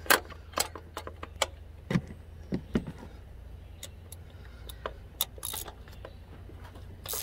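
Steel hand tools clinking and clicking irregularly: a spark plug socket on a long extension set down into the plug well and a ratchet fitted onto it.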